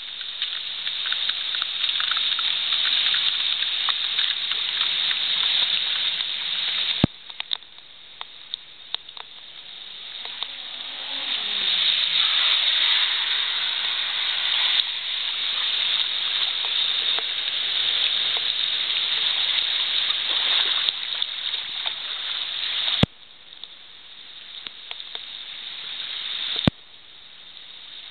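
Heavy rain coming down, with rainwater streaming over a flooded pavement where the storm drain is not taking it away: a steady hiss that swells and eases. Three sharp clicks break it, each followed by a sudden drop in the hiss.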